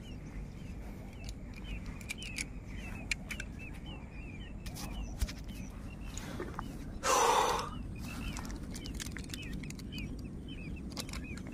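Small birds chirping over and over in the background, with a low steady rumble underneath. A brief, loud noisy burst comes about seven seconds in.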